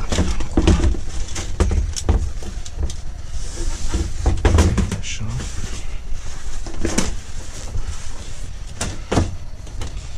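Irregular clatter and knocks of ratchet tie-down straps and their metal hooks and buckles being handled inside a van's cargo area, with thumps of movement against the boxes and van body.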